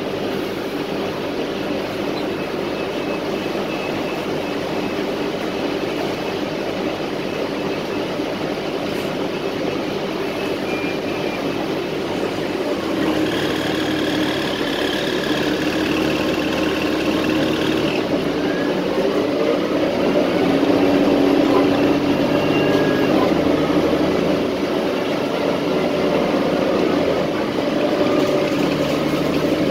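Transit bus heard from inside the passenger cabin: the engine and road noise of the bus running. About halfway through it grows louder and a higher whine joins in.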